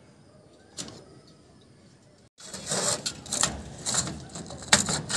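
One click, then a little over two seconds in, a run of loud, irregular clattering and knocking as PVC conduit is handled against steel rebar mesh.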